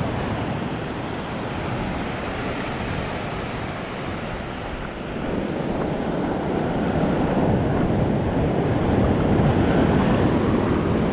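Ocean surf breaking and washing against a rocky shore, with wind on the microphone; the rush of the water grows louder about halfway through.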